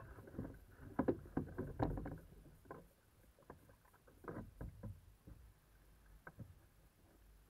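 Kayak paddles dipping and splashing on the sea alongside a tandem sit-on-top kayak, with water slapping the hull and small knocks of gear against it. Busy for the first two seconds, then sparser and quieter.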